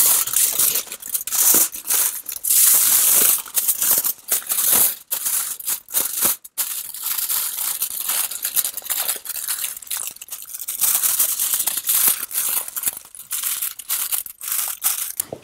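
Aluminium kitchen foil crinkling and crackling in irregular bursts as hands fold and crimp it into a closed parcel.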